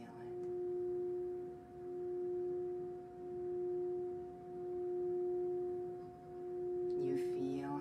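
Singing bowl being played around the rim, holding one steady pure tone with a fainter higher overtone, swelling and fading in a slow regular pulse about every one and a half seconds.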